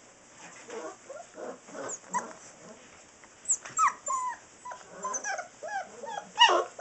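Six-week-old Saint Bernard puppies whimpering and yipping, with many short cries falling in pitch. They come thicker after about three seconds, and one louder cry comes near the end.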